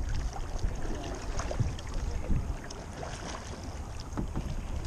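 Water splashing and lapping as one kayak is paddled and tows a second kayak on a line, with wind rumbling on the microphone. The splashes come irregularly over a steady rush of water.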